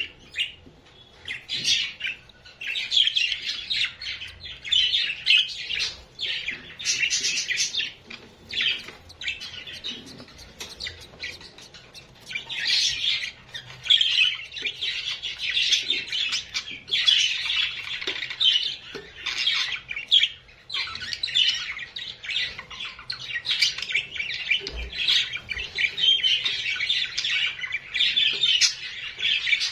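Small cage birds chirping and twittering in quick repeated bursts, with short pauses between runs.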